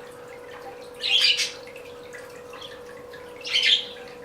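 Budgies chirping in two short bursts, one about a second in and one near the end, over a faint steady hum.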